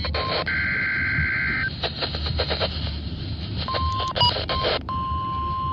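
Weather radio receiver playing the NOAA Weather Radio warning alarm test through static: a buzzing data burst about half a second in, crackling after it, then the steady high warning alarm tone sounding briefly and coming back near the end.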